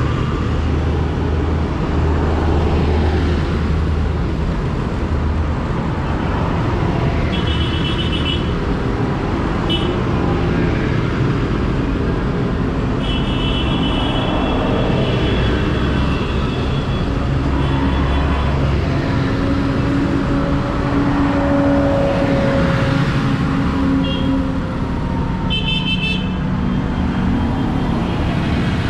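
Large farm tractors' diesel engines running as they drive past one after another, the rumble swelling and fading with each. Horns toot in short blasts several times, the longest run of toots a little before the middle.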